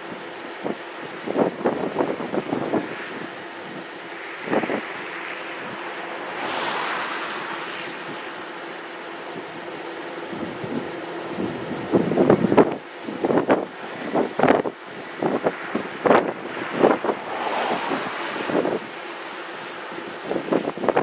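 Gusts of wind buffeting the microphone in short irregular bursts, over the steady running of a vehicle engine.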